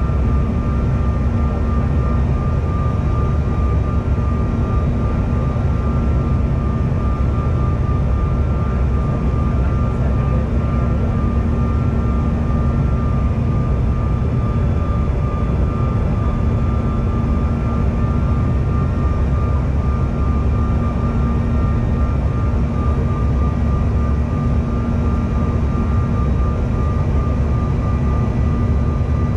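Steady jet cabin noise of a CRJ-1000 in motion: the rumble of its rear-mounted General Electric CF34 turbofans and airflow, with a constant engine whine over it. Even and unchanging, with no thrust changes or thumps.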